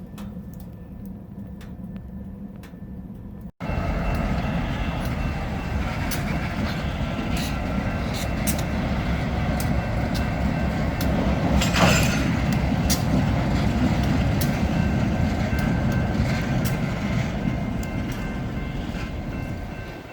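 Train rolling past close by, starting abruptly a few seconds in: a loud steady rumble of the cars with frequent sharp clicks and knocks from the wheels on the rails, and a thin steady squeal over it. Before that, a quieter low hum.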